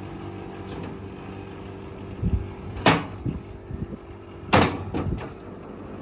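Mitubashi 2.5-ton split air conditioner outdoor unit running with a steady hum, the fan turning cleanly now that its loose fan nut has been refitted. From about two seconds in, several sharp knocks and clatters sound over it, the loudest near three seconds and near four and a half seconds.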